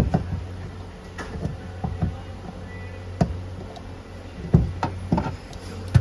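Scattered knocks and clicks, as of tools and parts being handled during a fuel pump repair, over a steady low hum.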